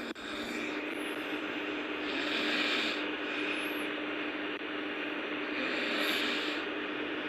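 Heavy snoring of a sleeping person: noisy breaths that swell twice, about three seconds apart, over a steady low hum.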